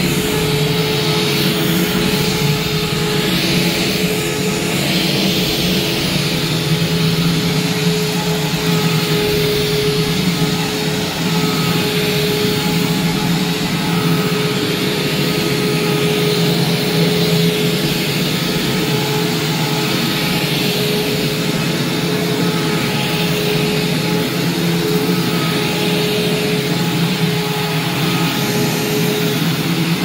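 Hoover Preferred/Spirit upright vacuum cleaner running on carpet: a steady motor hum and whine over the rush of airflow, swelling slightly every few seconds as it is pushed back and forth. The motor is a little off balance, which the owner blames on debris inside the unrefurbished machine.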